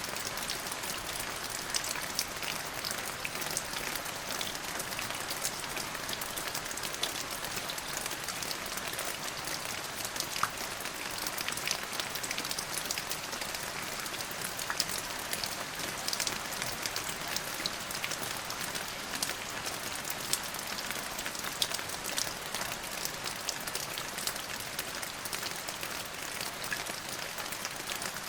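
Steady rain falling on a surface, an even hiss with many separate drops ticking through it.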